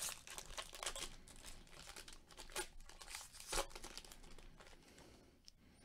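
Foil wrapper of a 2020 Topps Tier One baseball card pack being torn and peeled open by hand: faint, irregular crinkling and tearing with a few sharper crackles, dying away about five seconds in.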